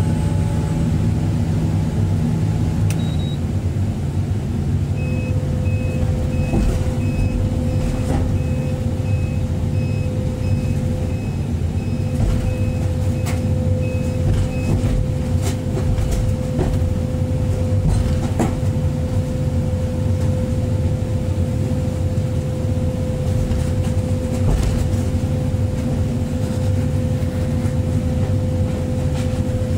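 Excavator diesel engine running steadily under load, heard from the cab. About five seconds in a steady whine joins it, and for about ten seconds there is a run of short alarm beeps, roughly one and a half a second.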